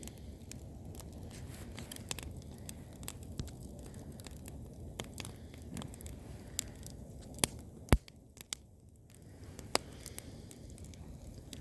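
Burning 8mm videotape cassette, its plastic and tape melting, crackling with many irregular sharp pops over a steady low rush of fire; the loudest pop comes about eight seconds in.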